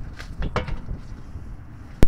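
Gloved hands handling a replacement CV axle, guiding its outer joint toward the wheel hub: a few short scuffs and knocks of the axle and boot against the suspension about half a second in, over a steady low rumble.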